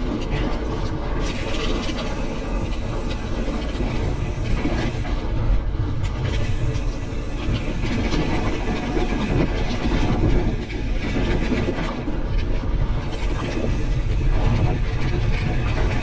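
Pivot Switchblade mountain bike rolling fast down a dirt singletrack: a steady rush of wind on the microphone mixed with tyre noise on the dirt and the clatter and rattle of the bike over bumps.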